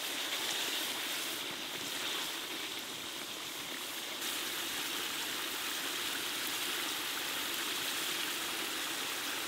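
Whole chickens sizzling steadily in oil and thick masala gravy in a kadai over a wood fire, the gravy bubbling as it fries down.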